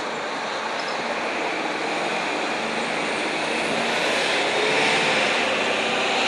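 Steady rushing noise that grows gradually louder.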